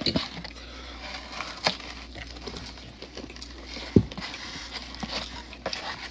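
Close-miked eating sounds: scattered mouth clicks and smacks, with one sharp thump about four seconds in.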